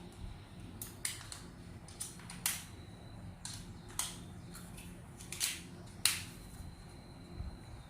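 A series of about a dozen irregular sharp clicks and short snaps, the loudest about two and a half seconds and six seconds in.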